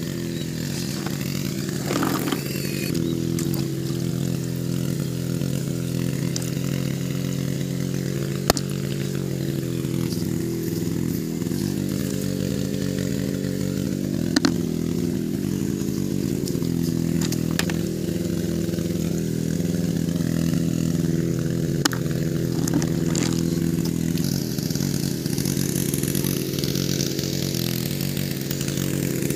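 A small engine runs steadily with an even drone that never stops. A few sharp clicks stand out over it.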